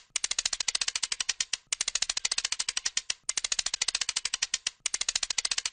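Rapid, even metallic clicking, about fifteen clicks a second, in runs of about a second and a half with brief breaks between them, as a hand tool turns the rusted clamp screw of an antique cast-iron meat grinder.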